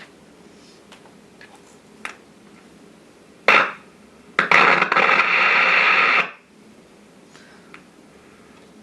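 Philco 40-145 radio's speaker hissing faintly, then bursts of static: a short one about three and a half seconds in and a louder one lasting about two seconds. This is typical of poor contacts at its Loktal tube sockets.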